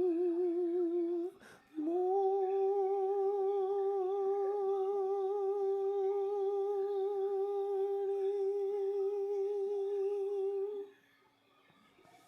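A man singing unaccompanied, holding a note with vibrato. A short held note ends about a second in, then after a breath one long note is held for about nine seconds before it stops.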